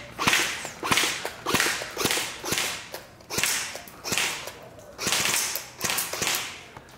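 Airsoft AUG-style rifle firing single shots in quick succession, about a dozen at roughly two a second. Each is a sharp snap followed by a short hiss.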